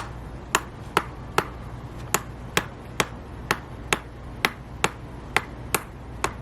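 Hand-held chiropractic adjusting instrument firing a steady run of sharp clicks, about two a second, as it is worked along the lumbar spine.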